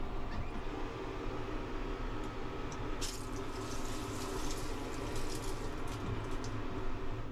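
Shower water running in the train suite's shower cubicle. It is turned on suddenly about three seconds in and dies away near the end, over the steady low rumble of the moving sleeper train.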